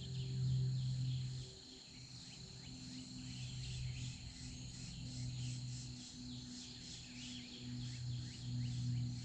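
Insects trilling steadily in a high continuous chorus, with a low sustained musical drone swelling and fading underneath.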